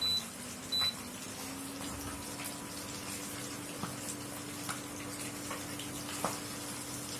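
Fish pieces sizzling steadily in hot oil in an iron kadai, with scattered small pops, over the steady low hum of an induction cooktop. Two short high beeps from the cooktop's touch buttons sound at the start and a little under a second in.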